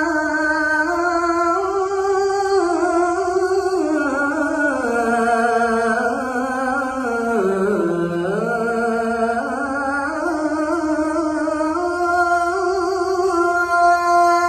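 A young man's unaccompanied voice chanting a slow, ornamented melody with a wavering pitch, sinking low about halfway through, climbing back and ending on a long held note.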